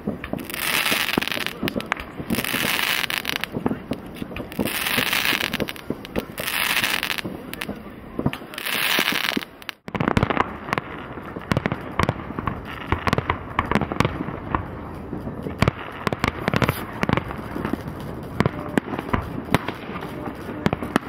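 Fireworks going off over the city. Hissing bursts come about every two seconds. After a cut about ten seconds in, a dense run of bangs and crackling pops follows.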